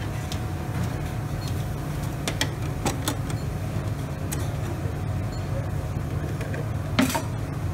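Chicken frying in hot oil in an open Broaster pressure fryer, bubbling with scattered crackles over a steady low kitchen machine hum. A single sharp metal clank about seven seconds in.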